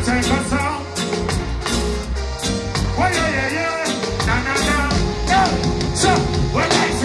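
Live reggae band music over a concert sound system, with singing over a steady bass line.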